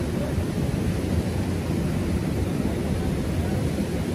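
Steady rush and low rumble of fast-flowing river water, even throughout.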